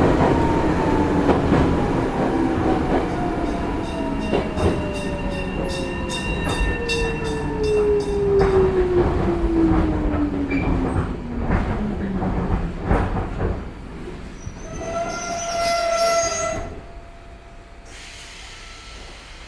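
Old gong-type level crossing bell ringing, about two strikes a second, heard from inside a passing electric train. Under it the train's motor whine falls steadily in pitch as the train slows for the station. A short squeal comes near the end, then the running noise drops away as the train comes to a stop.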